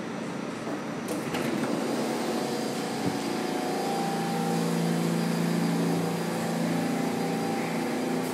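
R46 subway train standing in the station with its doors open: a steady hum of several tones from the train's equipment over station noise, with a brief rattle about a second in.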